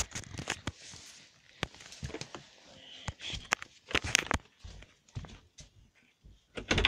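Handling noise from a recording phone being carried along: irregular knocks, bumps and rustles, with footsteps.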